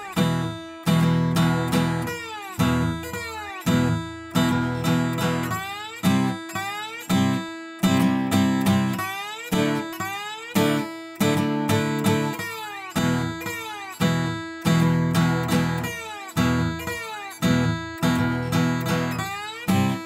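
Background music: acoustic guitar strummed in a steady rhythm, with a new chord struck about every second.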